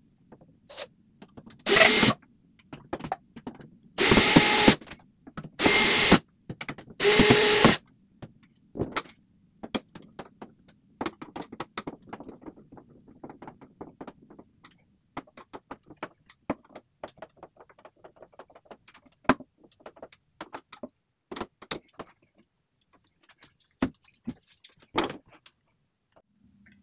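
Cordless drill driving screws through the back of a medicine cabinet into the wall, in four short runs of about half a second to a second each within the first eight seconds. After that, scattered light knocks and clicks.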